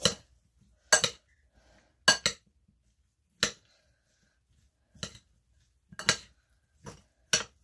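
Metal spoon clinking against the rim and side of a bowl while stirring chopped vegetables: about eight sharp, irregular clinks, with quiet between them.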